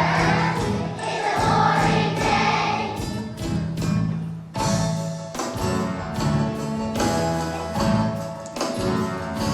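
Choir of second-grade children singing a song over an instrumental accompaniment with a bass line and a steady beat.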